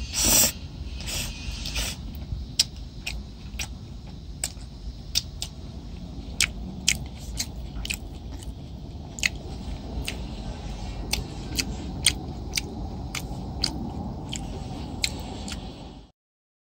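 Short, sharp clicks, irregular at about two a second, over a steady low rumble; the sound cuts off suddenly near the end.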